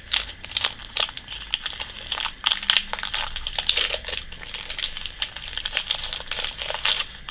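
Foil Pokémon booster pack wrapper crinkling and crackling in the hands as it is opened, a run of uneven crisp rustles.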